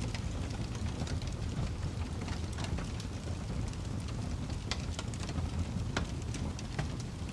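Wood fire crackling: irregular sharp snaps and pops over a steady low rumble.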